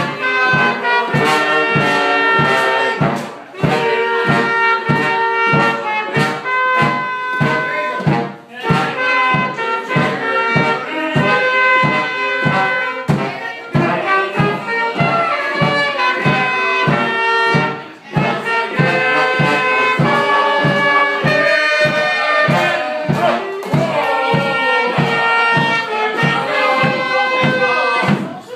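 A live oompah band of clarinet, trumpet, trombone and bass drum playing a brass tune, the bass drum keeping a steady beat of about two strokes a second. The music pauses briefly a few times between phrases.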